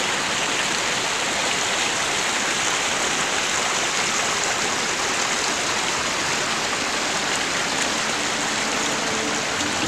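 Creek water rushing steadily down a small rocky waterfall, splashing over boulders.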